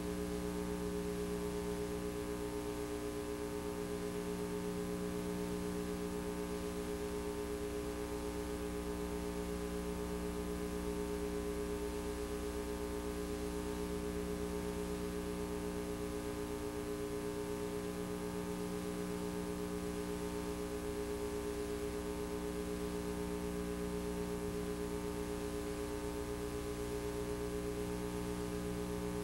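Steady electrical hum made of several pitched tones, unchanging throughout, with no other sound over it: the noise of a blank audio track in a VHS transfer.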